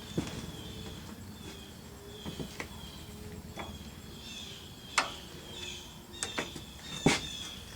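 Scattered sharp knocks and clicks, loudest about five and seven seconds in, over faint, repeated high chirping in the background.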